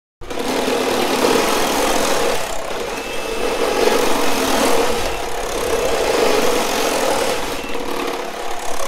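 Cordless reciprocating saws running flat out, their blades cutting through 3-inch Schedule 40 PVC pipe. The sawing noise is loud and continuous, and starts abruptly just after the beginning.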